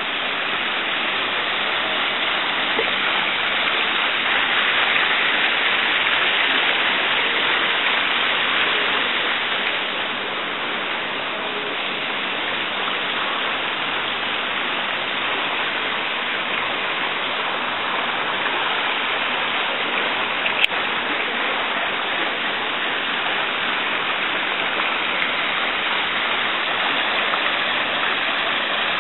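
Water from a tiered stone fountain splashing steadily down into its basin, a continuous rushing splash. A single sharp click about two-thirds of the way through.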